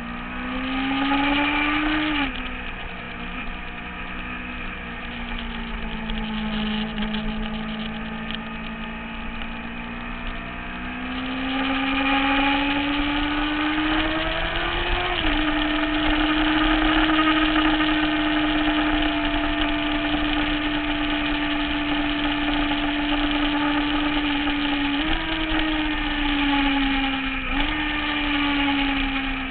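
Sport motorcycle engine running hard on a racetrack lap. The pitch climbs under acceleration and drops sharply at gear changes about two and fifteen seconds in, holds steady for a long stretch, then changes again near the end.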